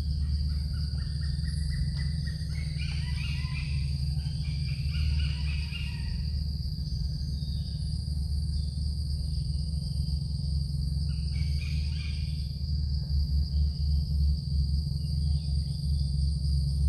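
Forest ambience: insects drone steadily at a high pitch, with a fainter pulsing chirp above them. Bursts of chirping calls come from about one to six seconds in and again near twelve seconds, over a steady low hum.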